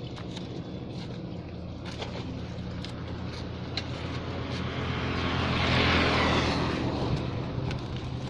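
A motor vehicle's engine runs at a steady idle, and a vehicle goes past on the road, swelling to its loudest about six seconds in and then fading. A few light knocks sound over it.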